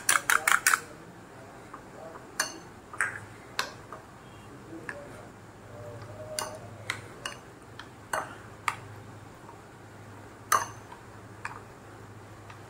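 Spoon scraping and clinking against a glass bowl while stirring julienned chicken in a wet egg-white and spice marinade. A quick run of clicks comes in the first second, then single clinks and knocks every second or so.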